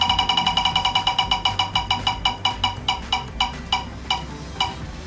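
Mystery prize wheel spinning: a rapid run of short, pitched ticks that slows steadily, from many a second to about two a second, as the wheel comes to rest.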